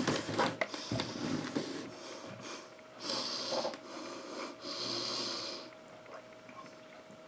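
A person breathing close to the microphone: scattered small breaths and mouth noises, then two longer hissing breaths about three and five seconds in.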